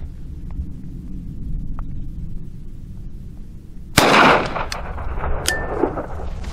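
A single .45 Colt shot from a Rossi Brawler single-shot pistol about four seconds in: a sharp crack with an echo that dies away over a couple of seconds.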